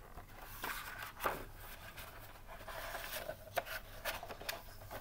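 Large picture book being handled, its paper pages rustling and rubbing, with several sharp ticks and scrapes.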